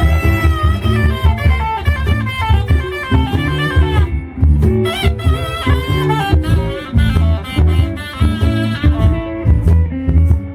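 Live blues band playing an instrumental break: a lead guitar line with bending notes over bass and drums.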